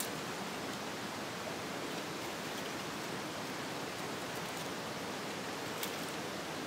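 Steady rushing of a river or stream flowing over rocks, with a faint click from dry twigs being handled at the start and another near the end.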